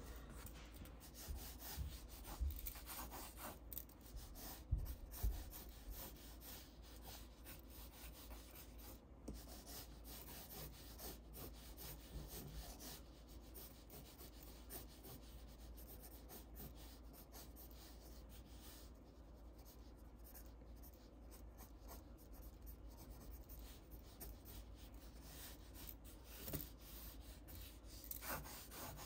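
Quiet scratching and rubbing of a yellow graphite pencil drawing on paper, in short hatching strokes and longer lines. A few soft bumps come in the first few seconds.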